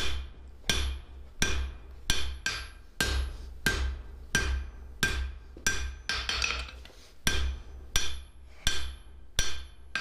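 A hand hammer strikes a red-hot steel bar on an anvil in a steady rhythm of about one and a half blows a second. Each blow is a sharp metallic clang that rings briefly.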